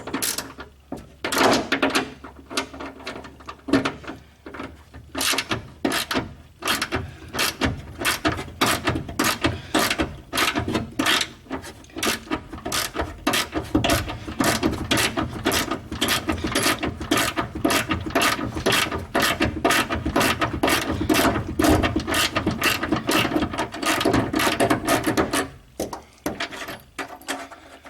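A hand ratchet clicking steadily, about two clicks a second, as bolts holding a window track inside a car door are undone. The clicking stops shortly before the end.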